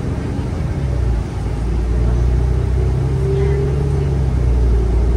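Cummins Westport L9N natural-gas inline-six engine of a New Flyer XN35 transit bus running under way, heard from inside the passenger cabin as a steady low drone. About a second in, the engine note shifts and then runs on steadier and a little louder.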